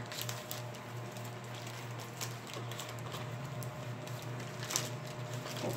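Hands opening and handling a packet of book covers: soft rustling with many light, scratchy ticks of the packaging, over a steady low hum.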